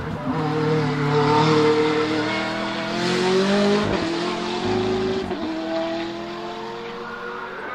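McLaren 650S GT3's 3.8-litre twin-turbo V8 at full throttle, its note climbing, dropping back at an upshift about four seconds in and again just after five, then fading as the car pulls away.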